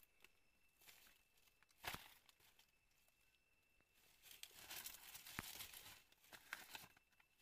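Faint crinkling and rustling of dry leaves as hands handle a wire snare trap on the ground. There is a single knock about two seconds in, and a longer stretch of rustling a little past four seconds with a sharp click in it.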